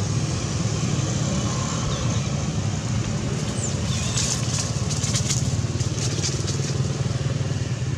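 A steady low rumble throughout, with a run of crisp crackles from dry leaves and dirt as a monkey scrambles over them, from about halfway in.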